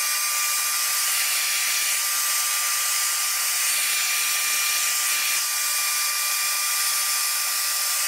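Handheld hairdryer running steadily: a strong hiss of blown air with a thin, steady whine from its motor and fan.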